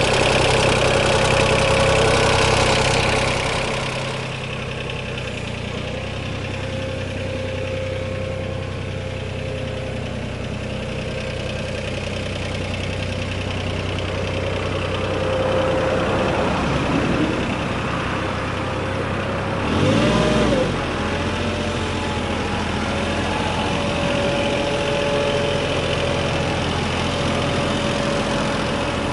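Yanmar VIO20-1 mini excavator's diesel engine running steadily. It is louder for the first few seconds, then settles lower, with a short rise and fall in pitch about twenty seconds in.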